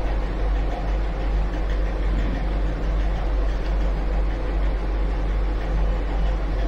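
A steady low hum under an even hiss, level and unchanging.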